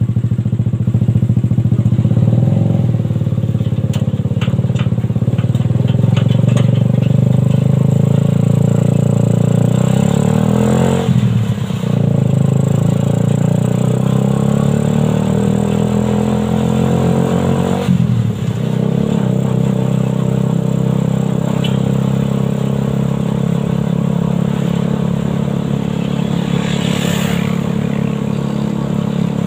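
Suzuki Satria FU 150cc single-cylinder four-stroke engine driving a homemade buggy, running under load. Its pitch drops sharply twice and climbs again.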